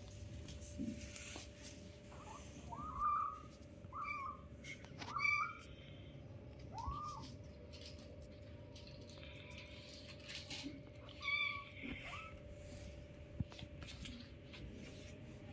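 Ginger-and-white kittens mewing: about five short, high-pitched mews, each rising then falling, most of them in the first half, over a faint steady hum.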